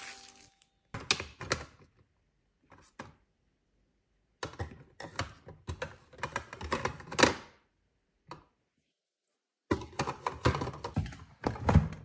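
Clicks, knocks and clatter of small plastic toiletry bottles and tubes being handled and set down in a cabinet drawer, in short bursts with silent pauses between. A louder thunk comes just before the end, as the rattan-fronted drawer is pushed.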